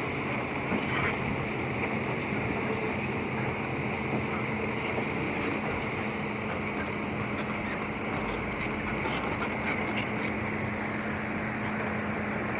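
Bulldozer's diesel engine running steadily, with a constant hum.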